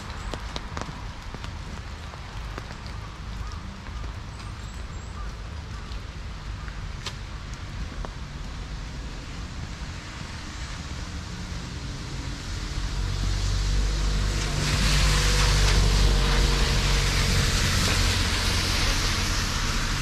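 Quiet outdoor ambience with a few small ticks, then traffic on a wet road: from about two-thirds of the way in, the hiss of tyres on wet asphalt and a low engine rumble swell up and stay loud to the end.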